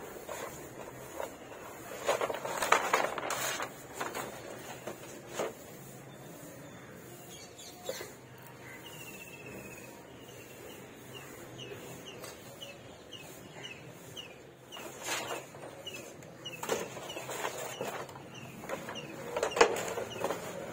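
Bumps and scrapes of a wooden painting board being turned over and set down on a concrete floor, coming in bursts about two seconds in and again near the end. In the middle, a run of short high chirps repeats about once or twice a second.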